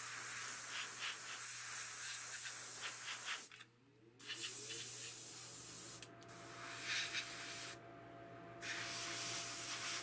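Airbrush spraying paint in hissing bursts: one long spray, a short break about three and a half seconds in, then several shorter bursts with pauses between them. A steady low hum runs underneath.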